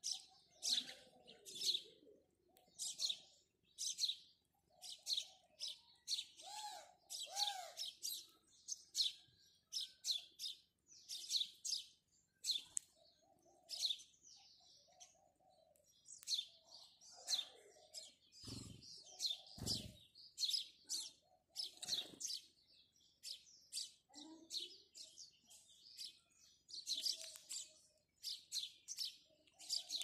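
House sparrows chirping, a steady stream of short, sharp chirps repeated over and over. Two low thuds a little over a second apart come about two-thirds of the way through.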